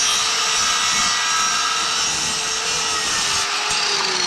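Electric power saw running and cutting a thin strip of wood: a steady loud whirr whose motor pitch drops near the end.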